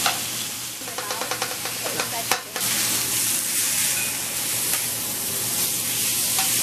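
Chicken breasts and steak sizzling on a hot teppanyaki griddle, with a quick run of metal clicks from the chef's spatula and knife against the steel plate between about one and two and a half seconds in.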